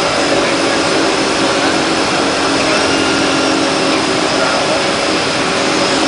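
DHC-6 Twin Otter's two turboprop engines and propellers running steadily on the takeoff roll, a loud, even drone with a low hum, heard from inside the cockpit.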